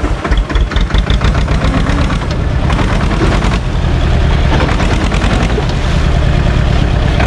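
Small SAME tractor's diesel engine running as it drives, a steady low rumble with a rapid, even pulsing clatter.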